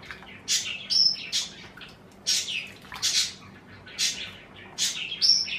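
Small birds chirping in the background, short high chirps repeating about every half second to a second.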